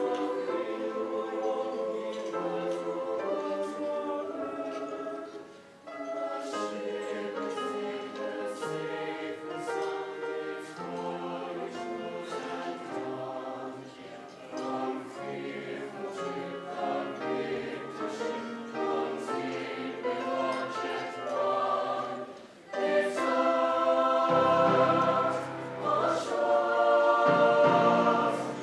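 Choir singing a piece in several vocal parts. After a short break about three-quarters of the way through, it swells into a louder, fuller passage with a low bass line underneath.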